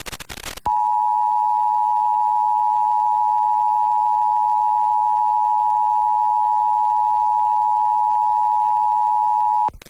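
Emergency Alert System two-tone attention signal, 853 and 960 Hz sounding together, received over FM radio. It starts about a second in after a short burst of radio static, holds steady for about nine seconds and cuts off abruptly near the end. It marks the start of an EAS alert, here a Required Weekly Test.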